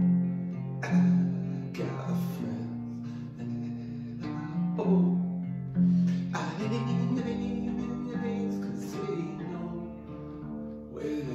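Acoustic guitar being strummed, chords ringing on between the strokes, with harder strums about a second in, at two seconds, around five and six seconds, and again near the end.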